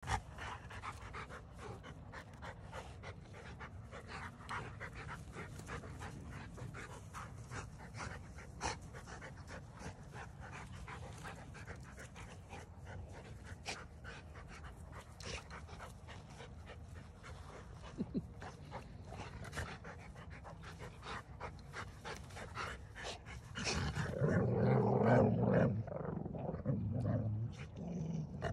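Two Rottweilers playing with bowling balls: many small clicks and knocks as they work the balls, then, near the end, louder low grumbles that come and go as both dogs nose the same ball. The grumbles are playful.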